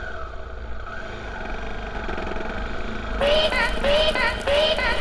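Honda XR250 Tornado's single-cylinder four-stroke engine running steadily. About three seconds in, music with a short repeating melody cuts in over it.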